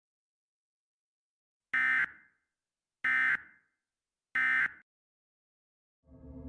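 Three short, identical buzzy bursts of Emergency Alert System digital data, about a second apart: the short burst length of the EAS end-of-message code, which signals that the alert transmission is over. A low droning music bed fades in near the end.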